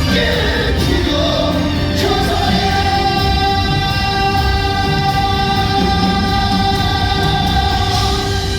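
Live stage-musical singing with accompaniment; about two seconds in, the voices settle onto one long held note that lasts until near the end.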